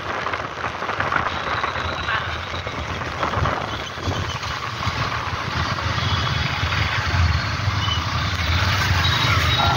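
Motorcycle riding on a rain-wet road: a steady hiss of wind and tyre spray over the low hum of engines. The low hum grows stronger in the second half as the bike pulls in among traffic.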